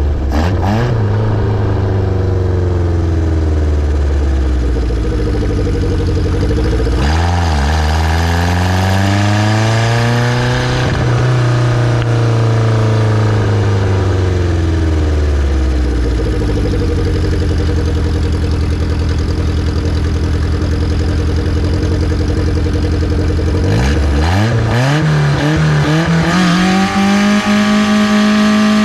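Toyota 5A-FE 1.5-litre four-cylinder on individual throttle bodies, running under way: engine speed rises and falls during the first half, holds steady in the middle, then climbs sharply near the end to high revs.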